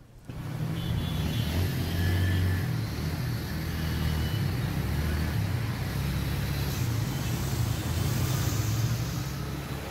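Motor traffic on a flooded road: the engines of scooters and other vehicles make a steady low rumble, with an even hiss over it.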